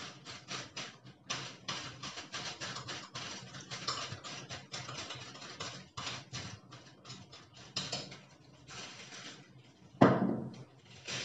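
Spoon scraping red-coloured cream out of a small plastic bowl into a plastic piping bag, with the bag crinkling: a run of quick, irregular scrapes and taps. A louder knock comes near the end.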